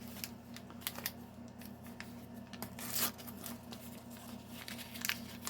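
Small toy-figure packaging being torn and crinkled open by hand: scattered light clicks and rustles, with the loudest tear about three seconds in.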